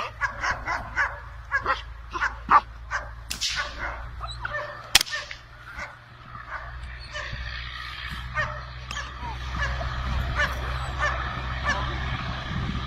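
German Shepherd barking over and over at about two to three barks a second, the excited barking of a dog worked up against a helper in protection training. A sharp click comes about five seconds in, and a low rumble rises under the barks in the second half.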